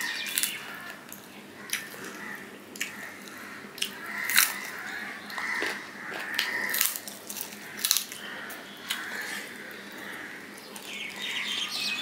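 Close-miked eating by hand: a man chews a mouthful of rice and chicken curry, with irregular sharp wet clicks and smacks, while his fingers mix rice and curry on a plate.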